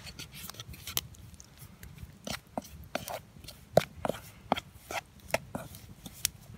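Wooden spatula tossing raw chicken pieces in flour in a metal camp pot: irregular taps, scrapes and soft wet squelches, with one sharper knock a little past the middle.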